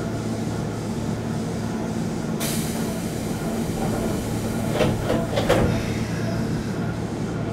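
Keisei 3400 series electric train (field-chopper control) running on the line, a steady rumble with a low hum. About two and a half seconds in a sudden hiss starts and fades, and two short louder surges of noise follow about five seconds in.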